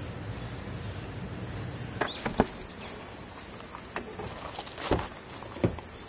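Steady, high-pitched drone of summer insects, louder after about 2 s, with several sharp knocks and clicks from someone handling things at a car.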